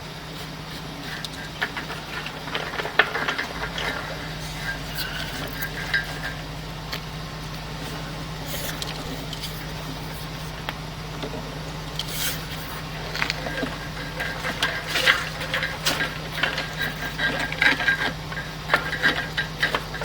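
Steady hum with scattered metallic clinks and rattles, growing busier in the second half, as a winch pulls on something stuck fast that does not move.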